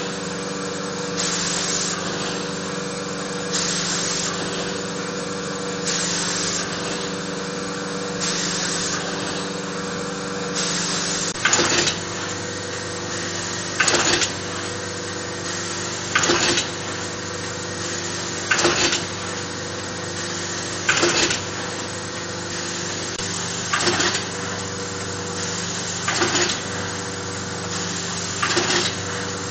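Theisen & Bonitz 315 VP sheet-processing machine running with a steady hum and a repeating cycle about every two and a half seconds. For the first ten seconds or so each cycle is a short hiss; from about twelve seconds in each cycle brings a louder clatter.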